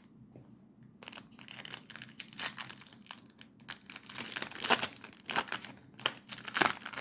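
Crinkling and tearing of a Topps Chrome trading-card pack wrapper being ripped open by hand, starting about a second in as a dense run of crackles.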